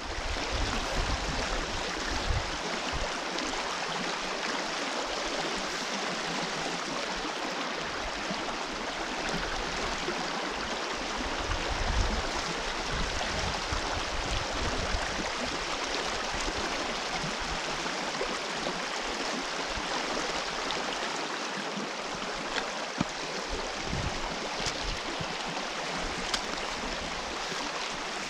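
River water rushing steadily, with irregular low rumbles underneath that are loudest about twelve seconds in.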